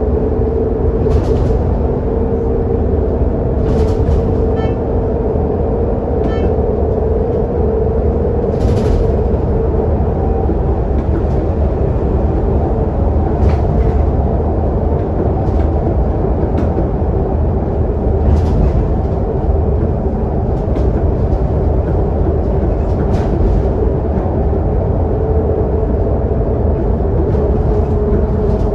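Scania K280UD double-decker bus heard from inside on the lower deck while cruising: a steady drone of diesel engine and road noise with a constant note running through it. Short rattles come every few seconds.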